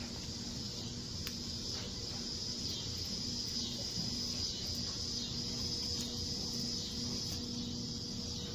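Steady chorus of insects, an even high buzz, with a faint low hum beneath it.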